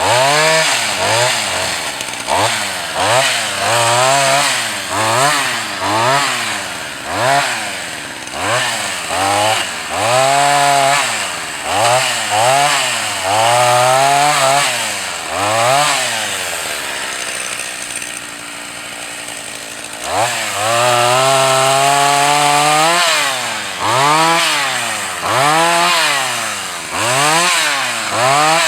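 Husqvarna 44 two-stroke chainsaw bucking birch, its engine revving up and falling back over and over, about once a second. About two-thirds of the way through it drops to idle for a few seconds, then is held at full revs for a couple of seconds before the revving resumes.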